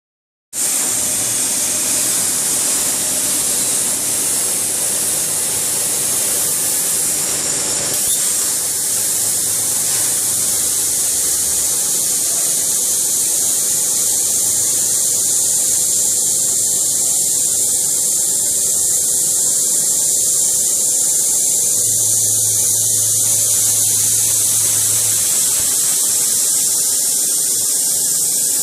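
CNC plasma cutter's torch cutting metal: a loud, steady hiss of arc and air that starts about half a second in, with a faint low hum now and then.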